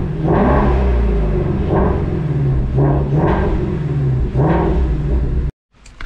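Shelby GT350's 5.2-litre flat-plane-crank V8 running and blipped in a series of short revs, the engine note swelling and falling back about every second or so, heard from inside the cabin. It cuts off suddenly near the end.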